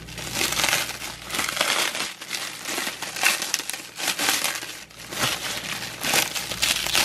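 Clear plastic wrap crinkling and rustling in irregular bursts as hands pull and twist it, working a tightly wrapped swimbait lure free.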